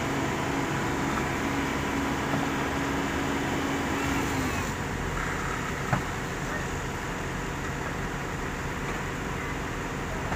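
Heavy diesel engines of a self-loader truck and an asphalt finisher idling, a steady hum whose low tone drops out about four and a half seconds in. A single sharp knock of a wooden ramp plank about six seconds in.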